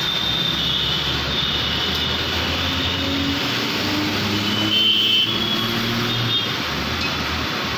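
Steady background noise of passing motor vehicles, with a low engine hum and a wavering high whine.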